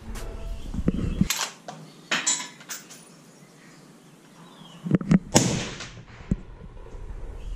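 Rifle fitted with a suppressor firing a few sharp shots from a bench rest, the loudest about two-thirds of the way in. The rifle is being test-fired at a 100 m target to check that it shoots straight.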